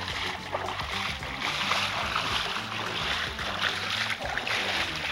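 Water sloshing and splashing as a man wades through knee-deep floodwater in a swamp, in uneven surges with each stride.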